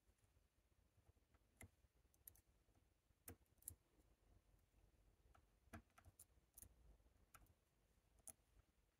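Faint, irregular small metal clicks of a hook pick working the pins of a Chicago Lock Co tubular lock under tension, about ten clicks scattered unevenly.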